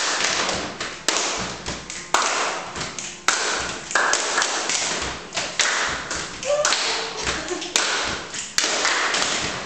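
Several people clapping their hands in a loose group rhythm, a sharp loud clap about once a second with quieter claps between.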